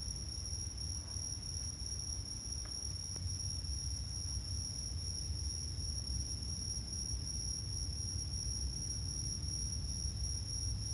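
A steady high-pitched whine that does not pulse, over a low rumbling noise, with two faint clicks about three seconds in.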